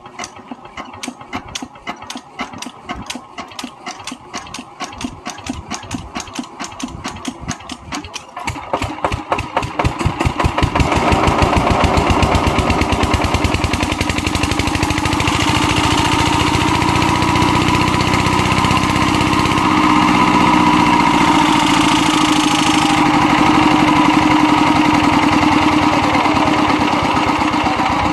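Diesel engine firing in separate, evenly spaced beats that quicken steadily until, about ten seconds in, it runs fast and continuous, much louder. Once it is at speed a whine rises and falls.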